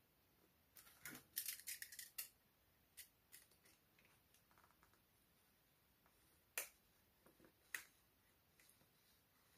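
Clicks and snicks from a snap-off utility knife cutting the seal stickers on a cardboard phone box. A quick run of clicks comes about a second in, then two sharp snicks a little over a second apart as the blade slits the seals.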